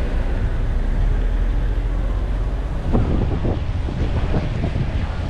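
Wind buffeting the microphone over a steady low rumble, with short irregular knocks or splashes starting about three seconds in.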